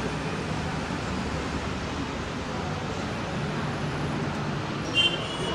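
Steady noisy background rumble with no clear source, and a short, bright ringing clink near the end.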